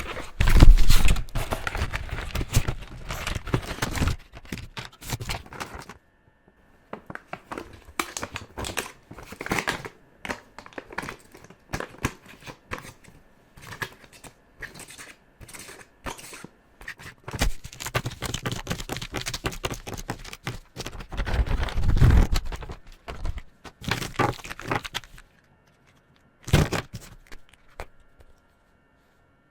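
Felt-tip pen coloring on paper: quick scratchy back-and-forth strokes in bursts, pausing briefly about six seconds in and again near the end, then one short burst.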